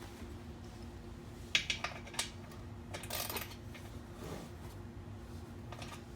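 Small metal objects clinking and rattling as they are handled: a few sharp clicks about one and a half to two seconds in, and a short run of clinks about three seconds in, over a faint steady hum.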